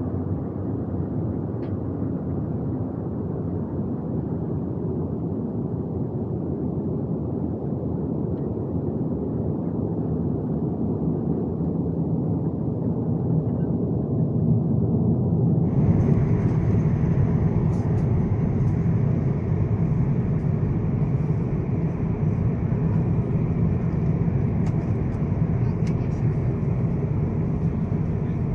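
Airbus A350-900 airliner noise, a steady rumble that slowly grows louder. A little past halfway it turns abruptly brighter and louder, with a few faint clicks.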